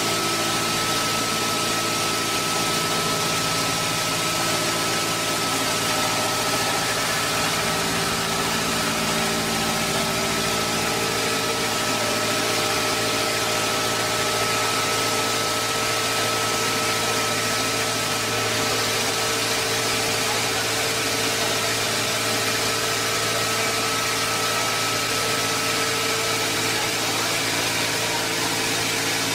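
Log-rounding lathe at work: the rotating cutter head shaves a turning log round as it travels along it, giving a steady machine drone with a thin high whine over an even hiss.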